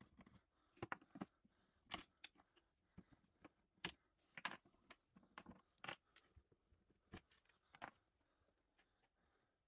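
Faint, irregular clicks and clatters of a hex tool working the bolts of a scooter's plastic underseat storage compartment, with the plastic panels being handled.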